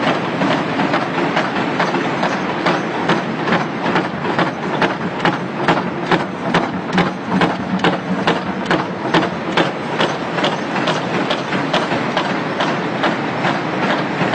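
Mechanical perforating punch press punching round holes in a metal sheet: a sharp metallic strike about three times a second over the steady running of its motor.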